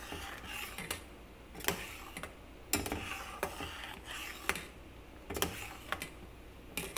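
Slotted metal spoon clicking and scraping against a stainless steel saucepan as milk and sugar are stirred and beaten while being reduced to condensed milk. The sharp clicks come about once a second, unevenly, with soft swishing of the milk between them.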